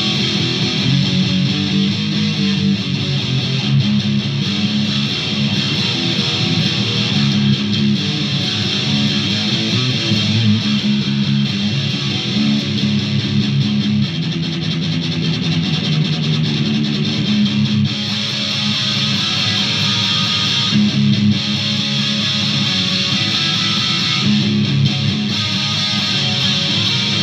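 Solid-body electric guitar played through effects pedals: a continuous run of picked notes and riffs with no break.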